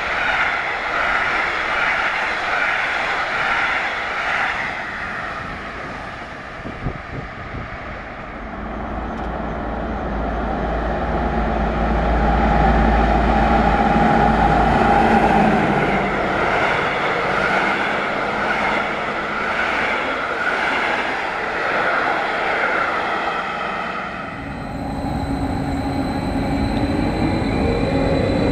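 Passenger coaches rolling past with wheel-and-rail clatter that fades away, then a red diesel locomotive approaching with a deep, steady engine rumble that swells and eases over several seconds. Near the end, after a cut, a Stadler FLIRT electric multiple unit gives a steady high electric whine over a low hum.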